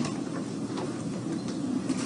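Classroom room noise: a low, steady murmur with a few faint rustles as seated children settle and find their place in their readers.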